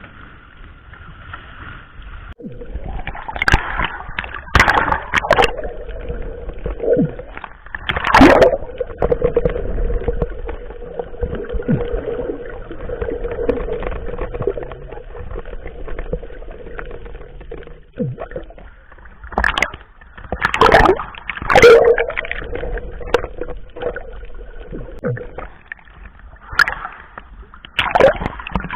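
Water splashing and sloshing around a small fishing boat, with a steady hum underneath and repeated sharp splashes and knocks, the loudest about 8 seconds in and again around 21 to 22 seconds.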